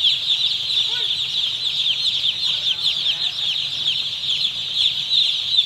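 Thousands of day-old broiler chicks peeping at once: a dense, steady chorus of overlapping high-pitched cheeps, with a faint low hum beneath.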